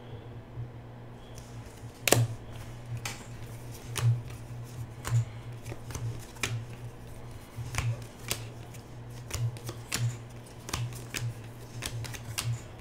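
Football trading cards being handled and flipped through one by one, making a run of crisp flicks and snaps, the sharpest about two seconds in.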